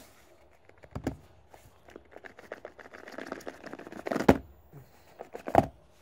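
Cardboard smartphone box being opened by hand: a few light taps, then a couple of seconds of cardboard scraping and sliding as the lid comes off, ending in a sharp knock, with another knock near the end.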